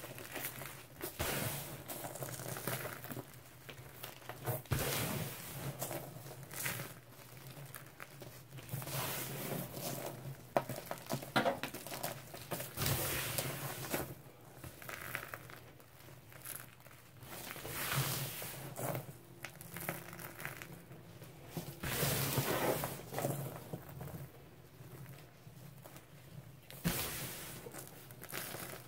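Hands scooping and sifting a heap of crumbled, dried slab of baking soda, lemon Comet and chalk: the fine powder pours and rustles in repeated soft swells a second or two long, with a few small crunches.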